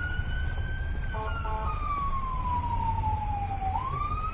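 A siren wailing in a slow cycle: its pitch rises slightly, slides down for about three seconds, then sweeps quickly back up near the end. It sounds muffled, as in a low-quality recording, with a low rumble underneath and two short beeps about a second in.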